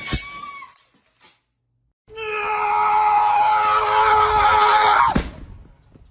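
A short wavering cry dies away. After a brief gap, a loud, long scream holds nearly one pitch for about three seconds and stops suddenly.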